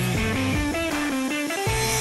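Background music led by electric guitar, playing a melody of short notes over a bass line.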